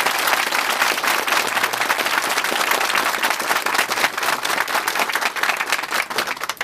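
A small crowd applauding, many hands clapping in a dense, steady patter.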